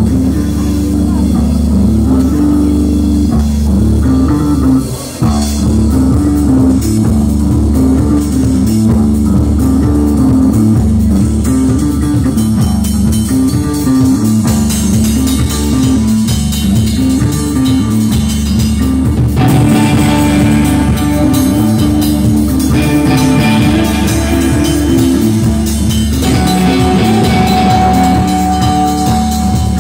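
Live rock band playing loud: electric guitar, bass guitar and drum kit, with a repeating low riff. The sound drops out briefly about five seconds in.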